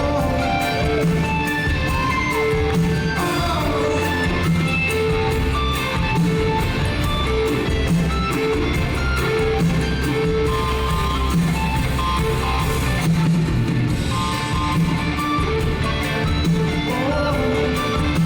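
Live rock band playing, guitar over a steady pulsing bass line.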